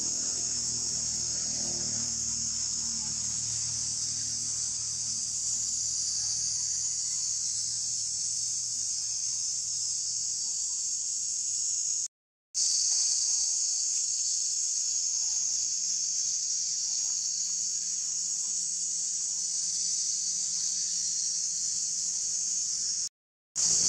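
Steady, high-pitched chorus of insects droning in the trees. It cuts out to silence for a split second twice, about halfway through and near the end.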